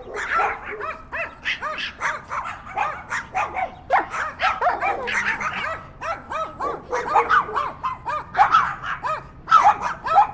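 Several dogs barking at once, a continuous run of rapid, overlapping barks at different pitches.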